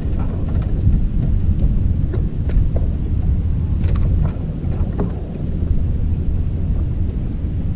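Wind buffeting the microphone, a steady low rumble, with a few light clicks and taps over it.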